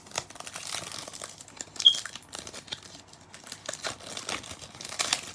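Wrapper of a Donruss Elite football card pack crinkling and tearing as it is pulled open, a pack that is hard to open. A dense crackle throughout, with one sharp snap about two seconds in.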